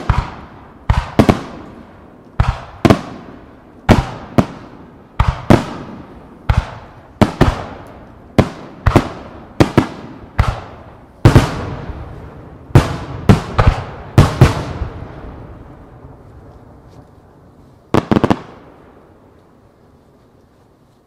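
Aerial firework shells bursting in quick succession, sharp bangs about two a second, each trailing off in a long echo. The barrage stops about fourteen seconds in, the echo dies away, and one last double bang comes near eighteen seconds.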